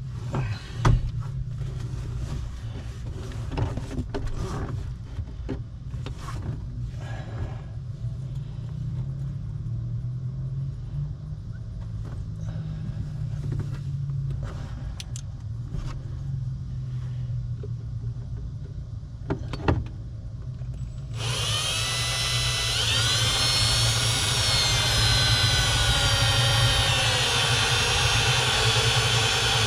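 Scattered knocks and clicks of handling over a steady low hum, then, about two-thirds of the way in, a power drill starts suddenly and runs on continuously as it drills a hole, its whine wavering in pitch.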